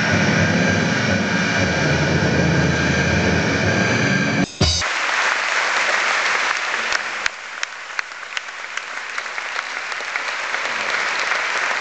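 Music with deep drum-like hits and sustained tones, cut off abruptly about four and a half seconds in. Then a large audience applauding.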